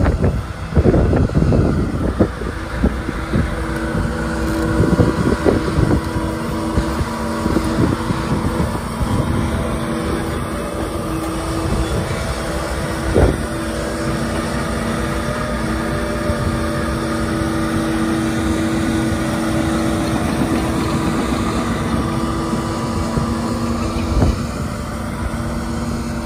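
Hitachi Zaxis 75US-3 compact excavator's diesel engine running steadily under hydraulic load as the boom, arm and bucket work, with a steady hum of tones over it. Wind buffets the microphone for the first few seconds, and there is a single knock about 13 seconds in.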